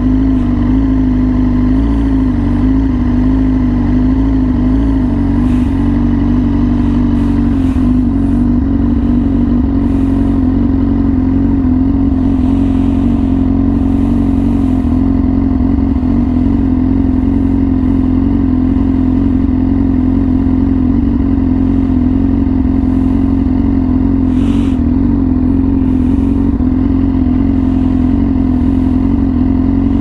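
Yamaha R6's inline-four engine through an SC Project exhaust, running at steady revs with its pitch holding nearly level, without any big rev rises or drops.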